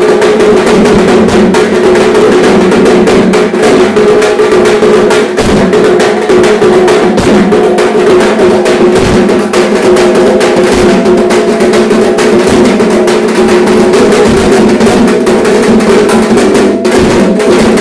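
A tasha and a large strap-hung double-headed barrel drum beaten together with sticks in a loud, fast, unbroken rhythm of dense strokes, with the drumheads ringing underneath.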